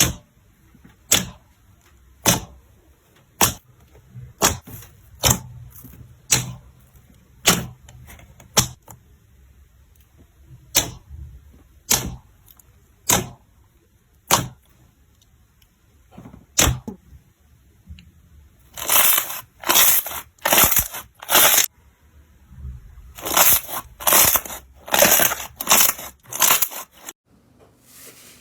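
Slime being pressed and poked by hand, giving sharp pops about once a second. In the last third come two runs of quicker, longer crackles.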